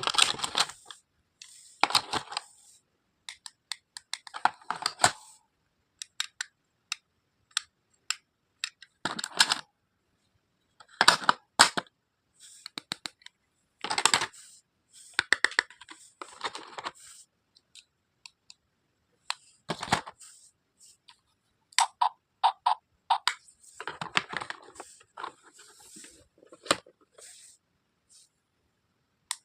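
Plastic pieces of a toy doctor kit being handled: irregular clicks, taps and short crinkling bursts, separated by silent gaps.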